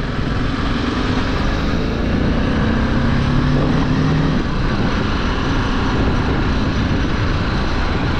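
Motorcycle engine running as the bike rides slowly along a gravel road, under a steady rush of wind noise. The engine note stands out more clearly from about a second and a half in until about four and a half seconds.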